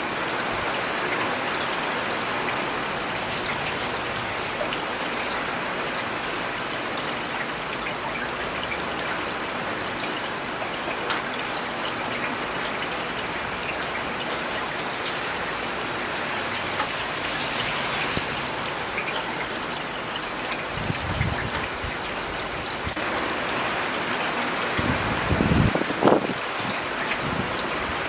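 Steady rain falling on city surfaces, an even hiss of drops. A few low thumps break through near the end, the loudest of them about two seconds before it ends.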